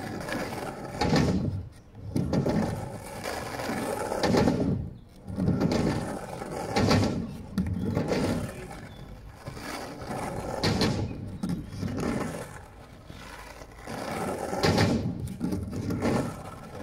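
Skateboard wheels rolling on asphalt and up and down a quarter-pipe ramp in repeated runs, the sound swelling and fading every few seconds. Several sharp clacks of the board as it turns on the ramp and comes back down.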